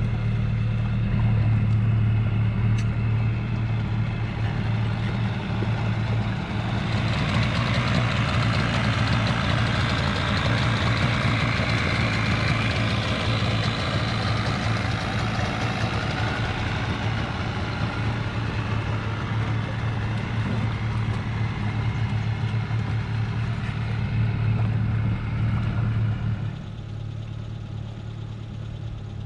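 Yamaha 25 hp outboard motor running at idle with its propeller in the water: a steady low engine hum that grows fuller and brighter from about seven seconds in. Near the end the sound drops to a quieter, lower engine hum.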